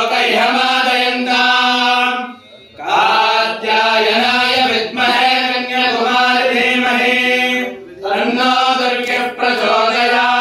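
Chanting of a Sanskrit mantra in long, held melodic phrases, with short pauses for breath about two and a half and eight seconds in.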